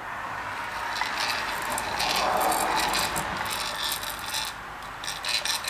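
Gear train of a hand-crank bench grinder turned by hand inside its freshly greased housing, the bull gear and shaft teeth meshing with a steady light metallic rattle, busiest in the middle.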